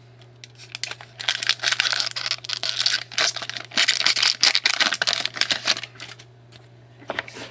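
Trading card pack wrapper being torn open and crinkled by hand, a dense crackling lasting several seconds before the cards are pulled out.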